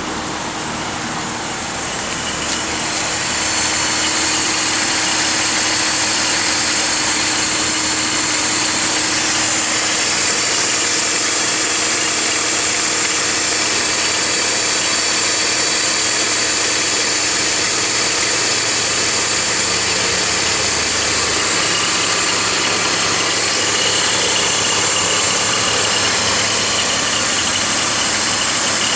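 BMW 325i E46's inline-six engine idling steadily with a rattle and whirring from the belt drive, which the owner puts down to a worn-out idler pulley. It grows louder over the first few seconds, then holds steady.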